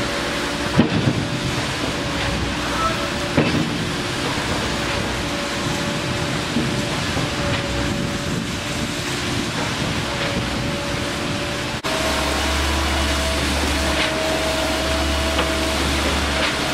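Truck-mounted concrete pump running steadily while pumping concrete, its engine drone carrying a held tone, with a couple of knocks about one and three seconds in. A stronger low hum comes in about twelve seconds in.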